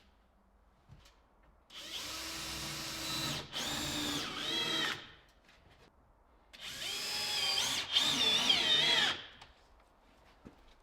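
Power drill running in two bursts of about three seconds each, each briefly interrupted, its motor pitch rising and falling as the trigger is worked.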